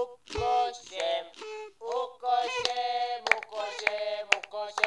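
A high-pitched voice singing short phrases, with sharp clicks between them.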